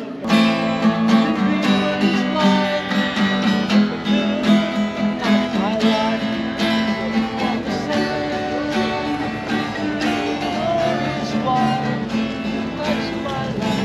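Acoustic guitar strummed steadily in a run of chords by a street musician.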